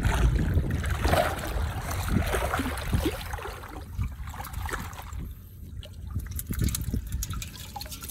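Shallow water splashing and trickling as people wade in it and lift a woven basket fish trap out of it, with a few small knocks.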